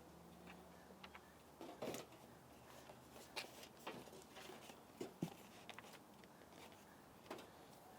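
Faint, scattered small clicks and a few light knocks: the wooden seat being handled and fitted back onto the chair.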